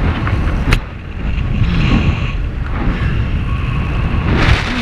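Wind rushing and buffeting on the microphone during a descent under an open parachute canopy, rough and mostly low. There is a sharp click a little under a second in and a stronger gust near the end.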